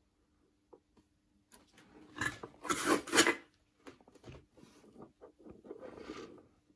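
Hands handling a guitar push-pull pot and its wires on a wooden workbench: a loud rustling rub about two to three and a half seconds in, then softer rubbing and small clicks.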